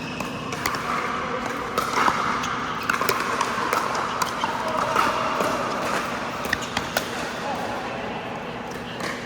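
Pickleball paddles striking a hollow plastic ball, sharp pops at irregular intervals, over a murmur of background voices.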